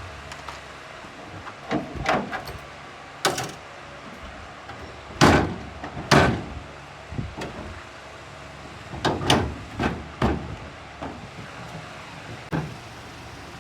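A run of irregular knocks and clatters of hard objects, about a dozen spread unevenly, the two loudest and longest about five and six seconds in.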